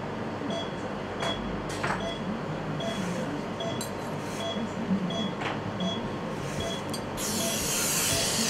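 Short high beeps at an even pace, about one every 0.6 seconds, as from a surgical patient monitor tracking the pulse, over a low background murmur with a few faint clicks. About seven seconds in, a loud steady hiss starts and drowns the rest.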